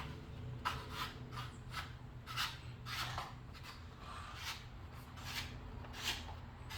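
Threaded buffer tube being screwed by hand into the receiver of a Glock AR-conversion chassis: short rasping scrapes, about two a second, as it is turned.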